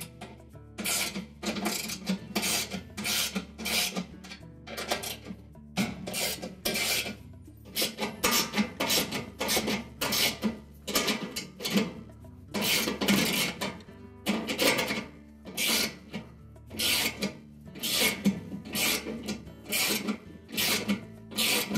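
Ratchet and 1/2-inch socket turning the washer's tub support cover bolts: repeated short rasping strokes of the ratchet's clicking, about one or two a second, with brief pauses between runs.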